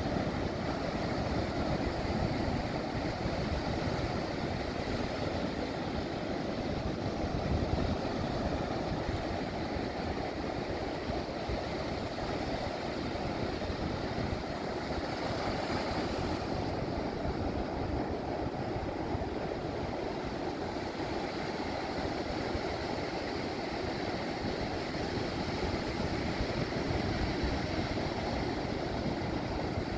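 Ocean surf breaking offshore and washing up over the sand: a steady, continuous rush of water, heaviest in the low range.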